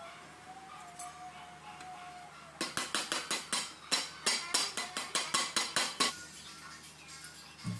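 Rapid tapping of a metal knife on the base of an upturned stainless steel pot, about six sharp strikes a second for some three and a half seconds, starting about two and a half seconds in, to loosen the baked chocolate cake inside.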